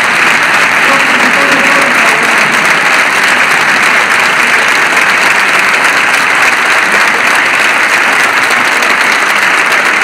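Large audience applauding steadily in a standing ovation: many hands clapping together in a dense, continuous wash of sound.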